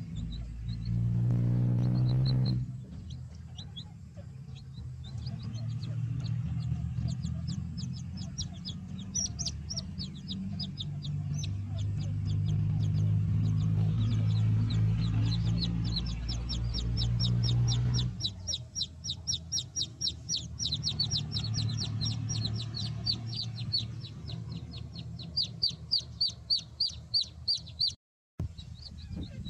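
Baby chicks peeping: rapid, repeated high-pitched cheeps that grow dense and nearly continuous in the second half, over a steady low rumble.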